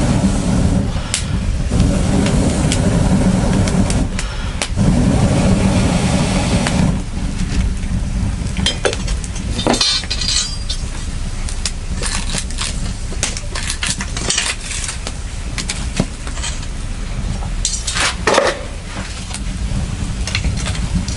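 Scattered clinks and knocks over a steady low rumble that eases off about seven seconds in.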